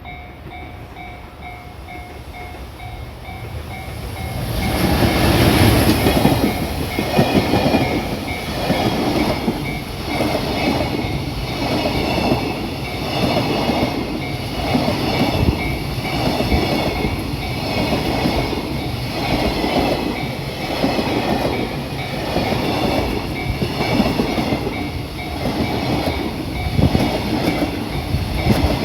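A level crossing alarm rings in a steady repeating pattern. About four seconds in, a JR Freight EF210 electric locomotive arrives. Its freight wagons then roll past with a regular clatter of wheels over the rail joints, about once a second.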